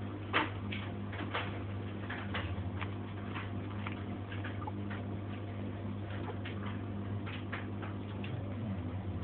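Two-week-old pit bull puppy sucking on a finger, making irregular clicking smacks a few times a second, over a steady low hum.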